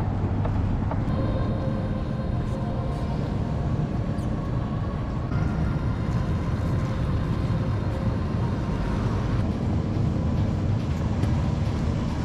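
Inline skate wheels rolling over brick paving: a steady low rumble that changes in texture about five seconds in.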